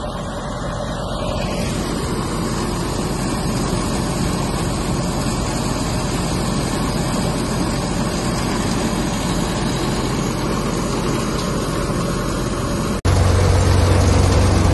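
Tractor-driven wheat thresher running steadily under load as wheat sheaves are fed in: a dense, even machine noise over the tractor engine's hum. Near the end the sound jumps abruptly to a louder run with a strong low hum.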